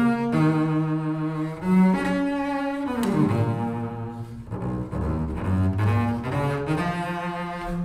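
Solo double bass played with the bow, a run of sustained notes moving up and down in pitch, with a slide downward about three seconds in.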